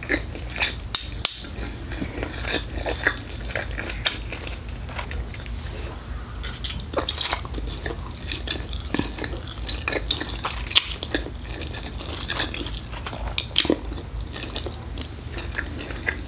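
Metal fork and spoon clinking and scraping against ceramic plates at irregular moments, with eating sounds, over the steady low hum of an air conditioner.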